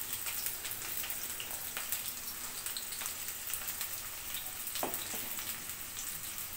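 Chopped onion and garlic frying in hot mustard oil in a karahi: a steady sizzle with many small crackles.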